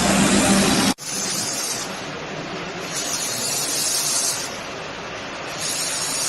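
Handheld fiber laser welder hissing as it welds, with an abrupt cut about a second in. After the cut a softer hiss continues, and a sharper high hiss comes and goes in stretches of about a second.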